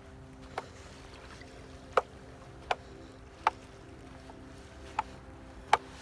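Footsteps crunching on gravelly sand: six sharp, short crunches at uneven intervals, about a second apart, over a faint steady background of held tones.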